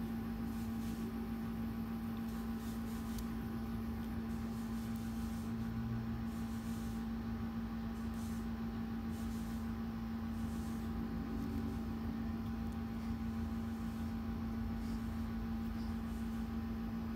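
Steady background hum: one constant low tone over a low rumble of noise, unchanging throughout.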